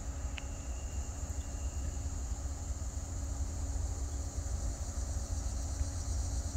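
Low, steady rumble of a distant diesel-led freight train approaching, growing slightly louder toward the end. The lead locomotive is Norfolk Southern GE ES44AC 8025. A steady high insect buzz runs underneath.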